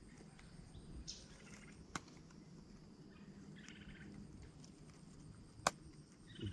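Quiet outdoor ambience with a few faint high chirps and two sharp clicks, one about two seconds in and a louder one near the end.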